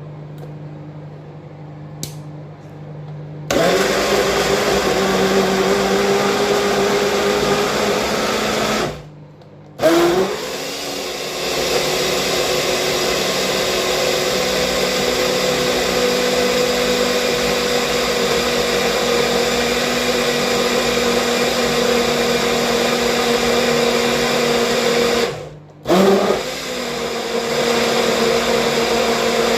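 Electric kitchen blender: a low hum, then the motor starts about three and a half seconds in and runs at high speed. It cuts out briefly twice, near nine seconds and again near twenty-five, each time spinning back up with a rising whine.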